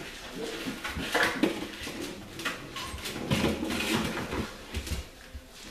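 Puppies playing on a tile floor, with scattered clatters and scrapes as an empty plastic jug is knocked and pushed about and small claws scrabble on the tiles.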